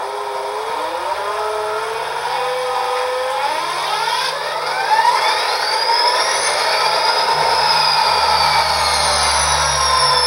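Soundtraxx Econami DCC sound decoder in an HO-scale SD40-2 model playing a diesel start-up through dual sugar cube speakers: the turbocharged EMD prime mover turns over and comes up to speed. A turbocharger whine climbs steeply over the first five seconds or so, then slowly falls, over a low engine rumble that grows heavier about eight seconds in.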